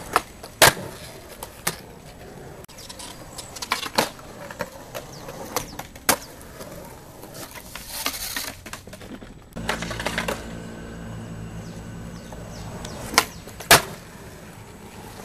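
Skateboard on concrete: sharp, scattered clacks and slaps of the board being popped and landing. A steady low engine hum comes in a little past the middle.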